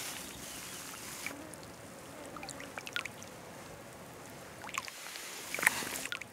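Water dripping and lapping around a landing net and hands as a brown trout is released into a shallow stream, over the steady hiss of flowing water. A louder cluster of splashes comes near the end as the fish kicks free of the hand.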